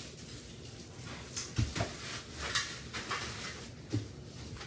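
Rustling of packaging with a few light knocks and bumps as foam packing and parts of a filling machine are lifted out of a cardboard box.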